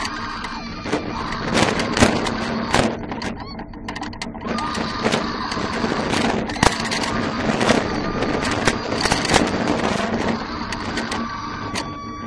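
Inverted roller coaster train running the circuit at speed: a steady rush of wind over the onboard camera, with repeated clattering and knocks from the train on the track.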